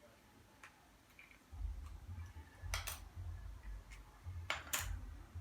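Small sharp clicks, two close pairs about two seconds apart, as the iPhone 6 Plus screen is worked loose around its edge, over low handling bumps.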